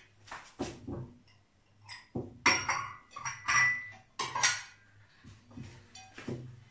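Crockery set down on a table piece after piece: a string of clinks and knocks, one ringing briefly about three and a half seconds in.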